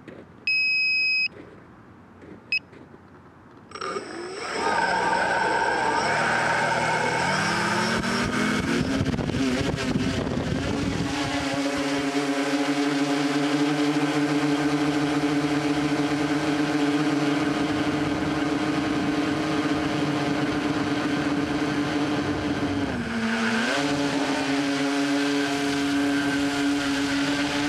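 An electronic beep of about a second, then a shorter beep, then the tricopter's electric motors and propellers spin up about four seconds in, their pitch rising as it lifts off. They settle into a steady multi-tone whine, with a brief drop in pitch and recovery near the end.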